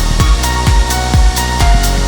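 Electronic dance music with a steady beat of about two strikes a second and a short synth melody.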